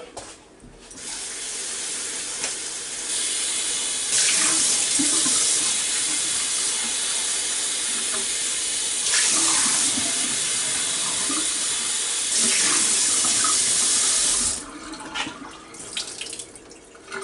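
Kitchen faucet running into a bowl of raw chicken wings as they are rinsed, the flow getting stronger in steps. It shuts off sharply about three quarters of the way through, followed by fainter splashes as the water is poured out of the bowl.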